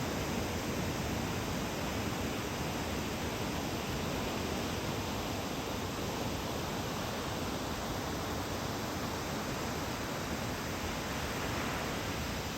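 Steady wash of ocean surf breaking on the beach under a typhoon swell, an even noise that swells slightly near the end.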